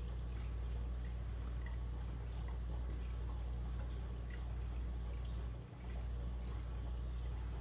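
Reef aquarium with its circulation pumps running: a steady low hum under faint trickling and dripping water. The hum dips briefly once, about three-quarters of the way through.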